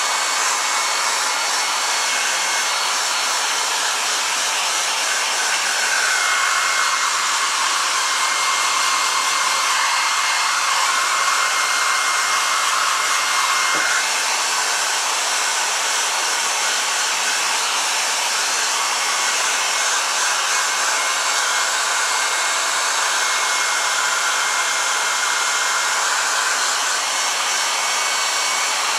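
Handheld electric hair dryer blowing steadily: a constant hiss of air with a faint high motor whine, its tone shifting slightly now and then as the air stream is worked into the damp fur of a squirrel mount to dry it.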